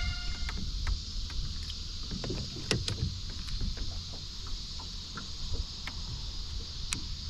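Small fishing boat sitting on a lake: water lapping at the hull with scattered small clicks and knocks over a steady low wind rumble.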